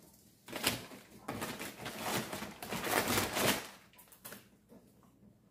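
Packaging rustling and crinkling as it is handled, for about three seconds, followed by a few faint taps.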